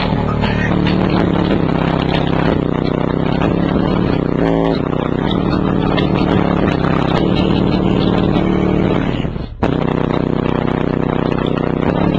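JL Audio 10W6 10-inch subwoofer in a ported enclosure playing loud bass-heavy music at high excursion, heard up close, its bass notes changing every second or two. The sound drops out briefly about nine and a half seconds in, then comes straight back.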